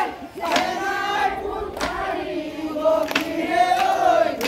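A group of voices chanting a Bihu song together in chorus, in long, sliding held lines. A sharp percussion stroke comes about every second and a quarter.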